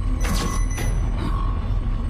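Eerie horror-film soundtrack: a deep steady drone with a beeping tone about once a second, and a short crackling burst of noise near the start.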